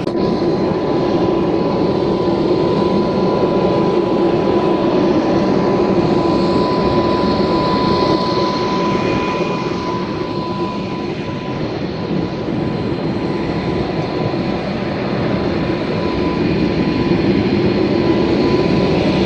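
Steady turbine noise on an airport ramp: a continuous roar with a constant high-pitched whine, typical of a jet engine or auxiliary power unit running nearby.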